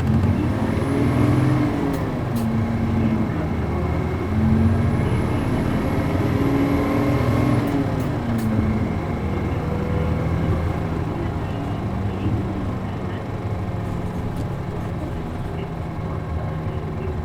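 Diesel engine of a route bus, an MD92TJ driving a 5-speed manual gearbox, pulling away and accelerating. The engine note climbs and drops several times in the first nine seconds as it is run up through the gears, with a faint high whistle during the climbs and a couple of sharp clicks. It then settles to a steady note for the rest.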